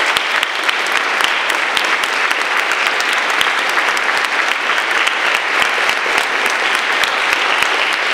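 An audience of school students applauding: a large crowd clapping steadily throughout.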